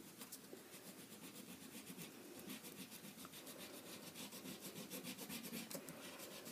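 Faint rubbing of a black crayon on paper, many quick back-and-forth strokes filling in a solid dark area.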